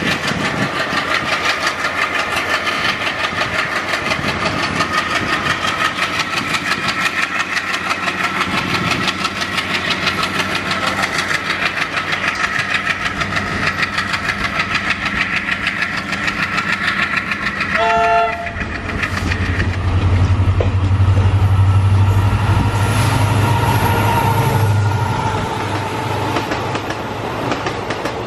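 Two Indian Railways diesel-hauled trains passing each other on adjacent tracks: a WDM3D ALCO diesel and its coaches go by with a fast rhythmic clatter of engine and wheels, a short horn blast sounds past the middle, then a WDP4B EMD diesel passes with a deep, loud engine drone for several seconds before its coaches clatter past.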